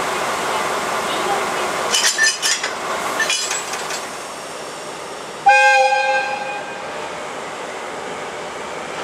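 A train horn sounds once, a two-note chord that cuts in suddenly about five and a half seconds in and fades out over about a second and a half. Before it, steady railway noise, with a stretch of clanking and hissing about two to four seconds in.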